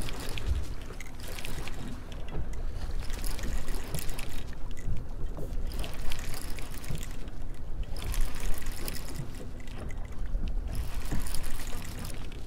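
Small boat underway at trolling speed: water rushing and splashing past the stern over a low steady rumble, with wind buffeting the microphone.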